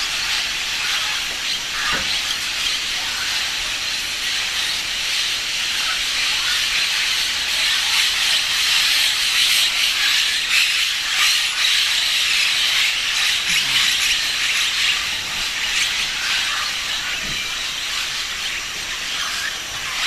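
A large flock of blue-headed parrots calling all at once: a constant high-pitched chatter of many overlapping calls, swelling a little in the middle.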